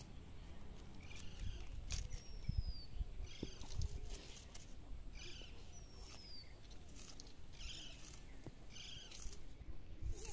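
Birds calling: short high calls repeating about once a second, with two thin descending whistles, over a low rumble.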